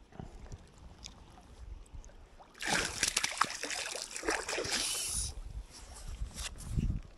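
Water splashing and sloshing in the shallows at the river's edge for about two and a half seconds, starting about two and a half seconds in. A low rumble follows near the end.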